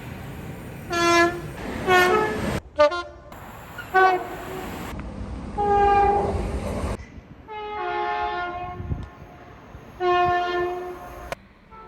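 A run of British train horns from several different trains, cut together one after another: about seven horn soundings, some short blasts and some held for over a second, some going from one tone to a second. Under them is the low rumble of the trains.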